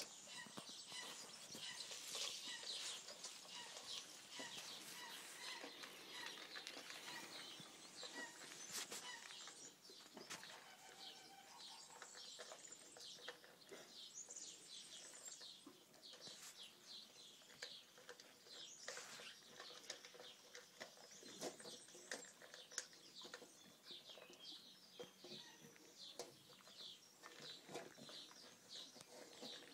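Cane Corso eating dry kibble from a stainless steel bowl: a steady run of quick crunches and clicks, with a few louder knocks of the bowl.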